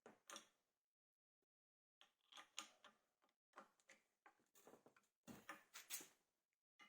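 Faint irregular clicks, knocks and short scrapes of hand work on workshop parts, sparse at first and busier from about two seconds in.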